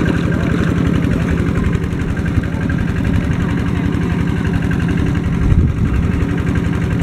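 Engine of a pond-draining water pump running steadily with a fast, even low throb. A brief low thump comes about five and a half seconds in.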